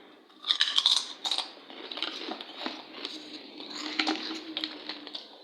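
Crackling and clicking of a crinkly snack packet and crisp potato snacks being handled, with a dense burst of crackles about half a second in, then scattered clicks.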